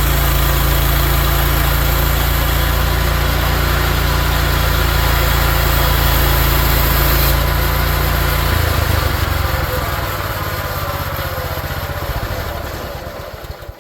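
Gas engine of a Mechmaxx 32-inch band sawmill running steadily at speed. About eight and a half seconds in its note drops, and it winds down, dying away to a stop near the end.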